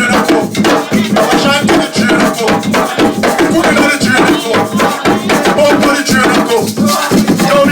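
Drumming with shakers rattling along in a fast, dense rhythm, and voices singing over it.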